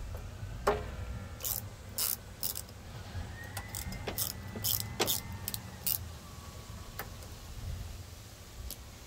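Socket ratchet wrench clicking irregularly as a bolt on a small lawnmower engine is turned with a socket and extension.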